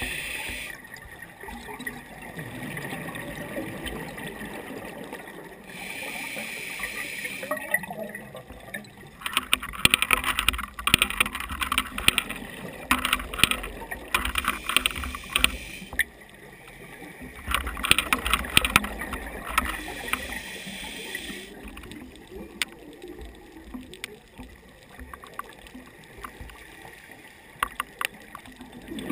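Scuba diver breathing through a regulator, heard underwater through a camera housing: short hissing inhales and two long bursts of crackling, gurgling exhaled bubbles.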